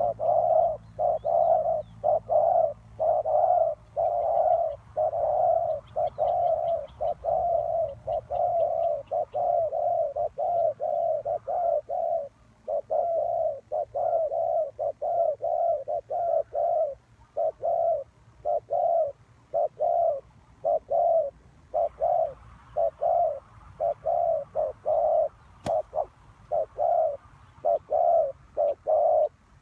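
Spotted dove cooing: a long run of short, low coos at about two a second, broken by a few brief pauses. A single sharp click sounds late on.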